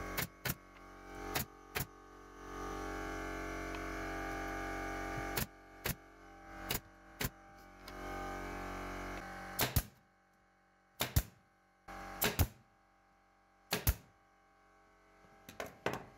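Pneumatic brad nailer firing into wood, a series of sharp, separate shots at irregular intervals as slats are nailed together. A steady machine hum, the air compressor, runs for several seconds in the middle.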